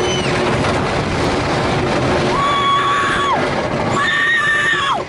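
A girl screaming on a wooden roller coaster, over a steady rush of wind and track noise: two long, high, held screams, one about two seconds in and one near the end that drops in pitch as it trails off.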